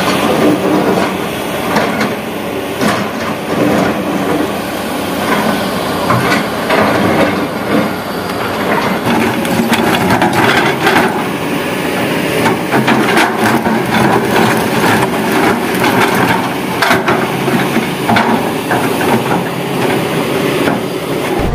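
Kobelco hydraulic excavator digging in rock and gravel: the machine runs steadily while its steel bucket scrapes and knocks against the stone, giving many irregular clanks and crunches.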